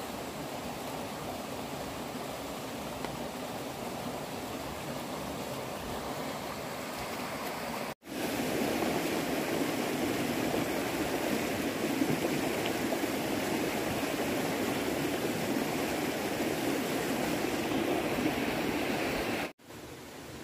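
A steady rushing noise with no rhythm or tone, like running water. About 8 seconds in it jumps to a louder stretch of the same kind of noise, which cuts off shortly before the end.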